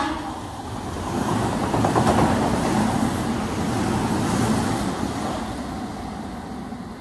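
Odakyu 8000-series electric commuter train running along the station track and moving away, its wheels rumbling on the rails and fading gradually over the last few seconds.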